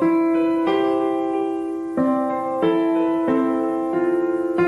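Background music: piano chords struck every second or so, each left to ring and fade before the next.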